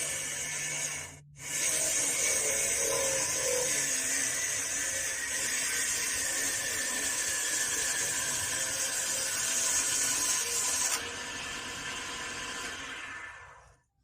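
A power tool working wood, running steadily with a hiss-like high whine. It drops out for a moment about a second in, and near the end it softens and fades away.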